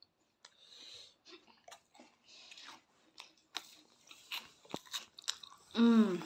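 People chewing and crunching cheese balls, with many small, scattered crunches. A brief voice sound comes just before the end.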